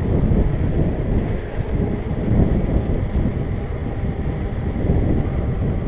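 Wind buffeting the microphone of a moving bicycle, a steady low rumbling rush with no clear motor tone standing out.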